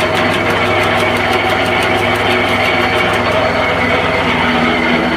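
Wood chipper's engine running steadily, with a rapid, regular ticking that fades out about three and a half seconds in.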